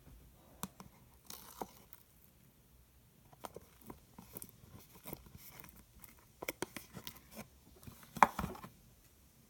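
Clear, jiggly slime being squished and poked by hand: irregular small clicks and squishes, the loudest about eight seconds in.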